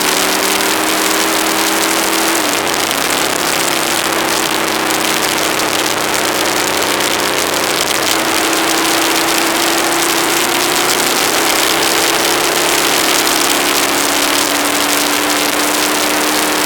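Aprilia ETV1000 Caponord's V-twin engine running steadily on the road, its pitch stepping slightly about two and a half seconds in, under a heavy rush of wind noise on the action camera's microphone.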